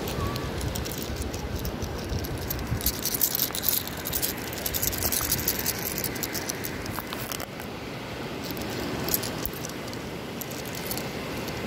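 Seashells clicking and rattling together in irregular little clusters of clicks, over a steady rush of wind and surf.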